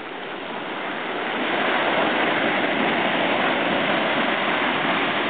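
Ocean surf: small waves breaking and washing up the sand in a steady rush, which swells over the first couple of seconds and then holds.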